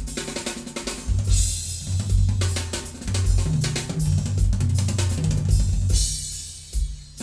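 Drum-kit music played back through a vintage Sansui QRX-7500 stereo receiver: kick drum, snare and cymbal hits over a low bass line that shifts in pitch. The playing thins out for a moment near the end before the full beat returns.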